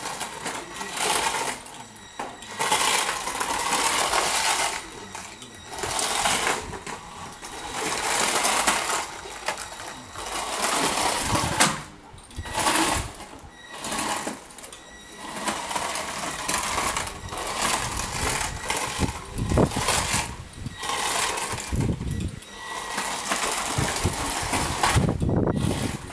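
Small electric drive motors of a beetleweight combat robot whining in short stop-start bursts as it drives over floor tiles. The jerky on-off driving comes from relay-based model-railway speed controllers, which give only clunky control.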